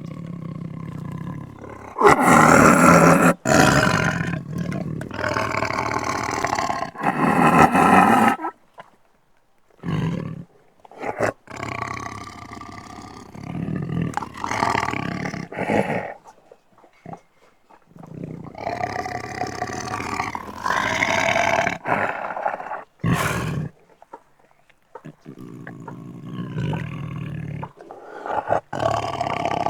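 Beast growl and roar sound effects: a series of separate growls, each a second to a few seconds long, with short silences between them. The loudest come about two seconds in and again around eight seconds.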